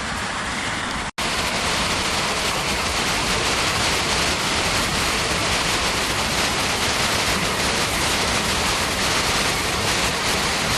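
Small creek waterfall: water pouring and splashing in a steady rush. It cuts out for an instant about a second in and comes back a little louder.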